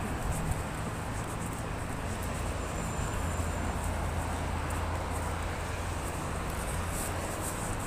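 Steady road traffic noise from cars passing on a multi-lane road, with wind rumbling on the phone's microphone.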